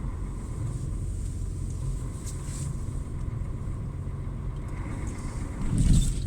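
Truck engine running steadily at low speed, a low even hum, with a louder low thump near the end.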